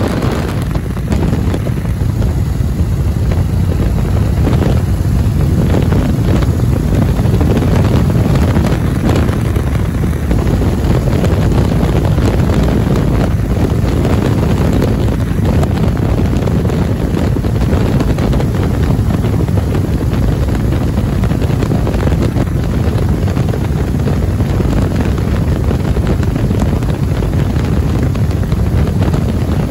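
Steady wind rush and engine drone from a Waco UPF-7 biplane in cruise flight, its Continental W-670 seven-cylinder radial engine and propeller running under the slipstream buffeting the microphone.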